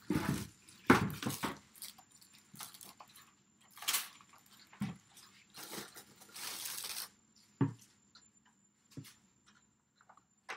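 Clear plastic bag wrapped around a new toaster crinkling and rustling in irregular bursts as it is handled and pulled off, with a few short, soft thumps of handling near the end.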